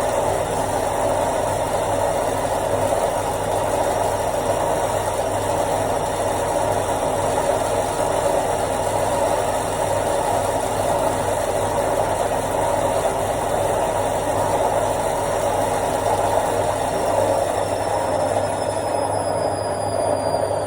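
Washing machine on its spin cycle at full speed: a steady, even mechanical whir over a low hum. Near the end a faint high whine begins to fall slowly in pitch.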